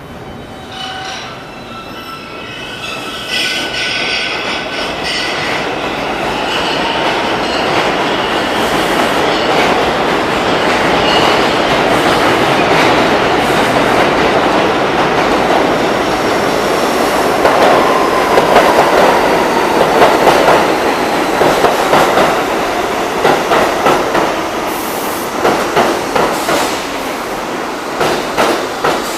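Bombardier R62A New York City subway train running into the station: wheels rumbling on the rails, building over the first few seconds, with high wheel squeals and, in the second half, rapid clacks as the wheels cross rail joints.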